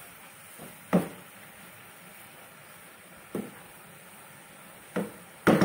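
Wooden spoon knocking against the side of a cooking pot while stirring chopped greens: a few sharp knocks, the loudest about a second in, and a quick run of them near the end.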